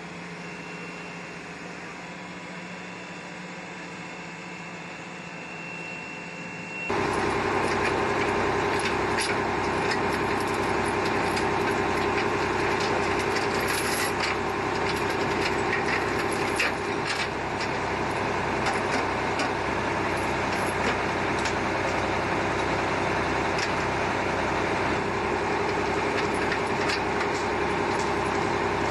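A faint steady hum for about the first seven seconds, then a mobile crane's engine running steadily and loud. Scattered metallic clinks of lifting chains sound over it for several seconds after the engine comes in.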